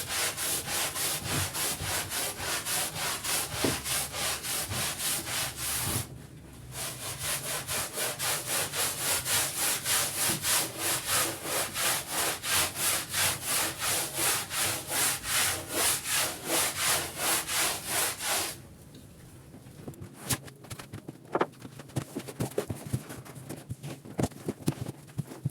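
Stiff brush scrubbing a rug's pile in quick, even back-and-forth strokes, about four a second, with a short break about six seconds in. The strokes stop a few seconds before the end, leaving faint scattered taps and rustles.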